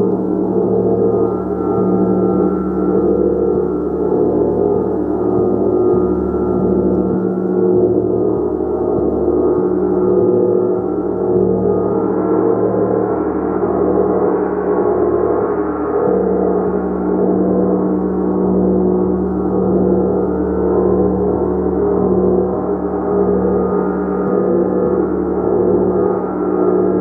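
A gong played continuously in a steady, sustained wash of overlapping tones, with deep hum and shimmering overtones swelling and fading in a slow pulse and no distinct strikes standing out.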